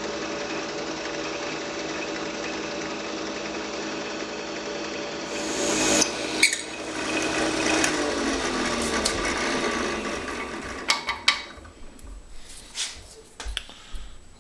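Benchtop drill press boring a row of holes into a wooden block, sped up eightfold into a fast, even buzz. About seven seconds in a falling whine is heard, and near the end there are a few separate knocks and clicks as the block is handled.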